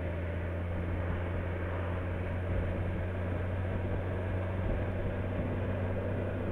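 Motorcycle running steadily while riding along a road, its engine a constant low hum under an even rush of wind and road noise.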